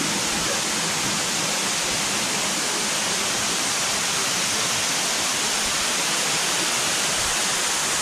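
Small waterfall cascading down a narrow rock channel: a steady, unbroken rush of falling and splashing water.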